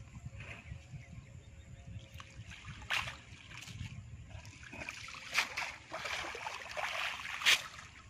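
Water splashing and dripping, with sharper splashes about three, five and seven and a half seconds in, the last the loudest, over a low steady rumble.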